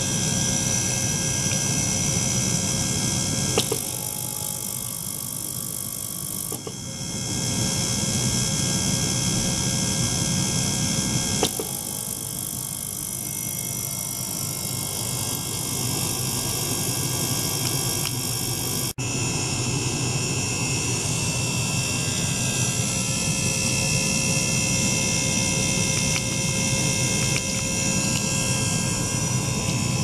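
Tabletop ultrasonic cleaner running with water in its tank: a steady hissing buzz carrying several steady high tones. It dips in level for a few seconds twice and cuts out for an instant about two-thirds of the way through.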